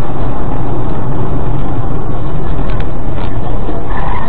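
Steady road, tyre and engine noise of a car driving at highway speed, heard inside the cabin through a dashcam microphone, loud and unchanging.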